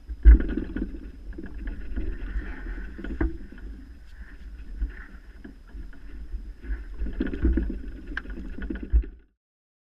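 Rumbling, rustling handling noise with scattered knocks as an angler works a long fishing pole by the water, with one loud knock just after the start. The sound cuts off abruptly near the end.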